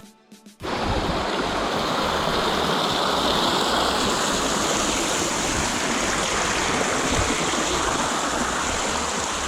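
Rainwater runoff rushing down the stone steps of a flooded mountain trail: a steady, loud rush of water that starts abruptly about half a second in.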